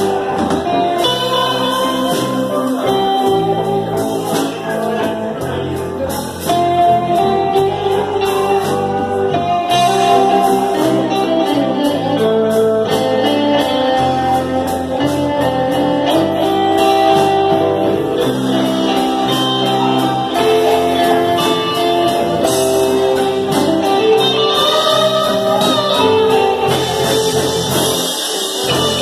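Live band playing: electric guitars, bass guitar and drum kit, with a singing voice over them.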